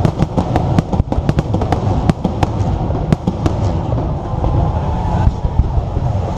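Low-level fireworks going off in quick succession: many sharp bangs and cracks, thinning out after about three and a half seconds, over a steady low rumble.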